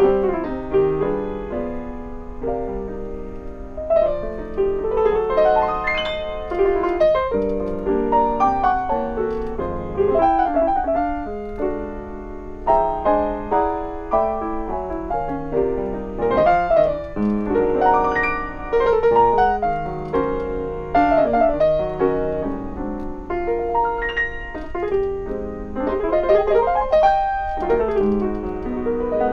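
Solo grand piano played live: a flowing, many-noted passage with chords and several quick rising runs, the last one near the end.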